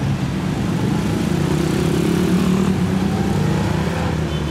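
Road traffic at a busy junction: jeepneys and cars passing with their engines running, a steady low rumble that swells slightly in the middle.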